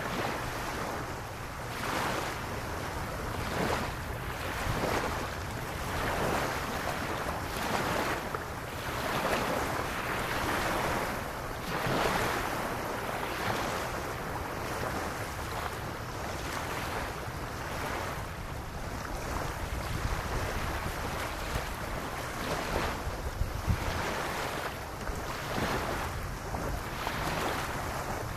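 Small waves lapping on a sandy beach, a soft wash that swells and fades every second or two, with wind rumbling on the microphone underneath.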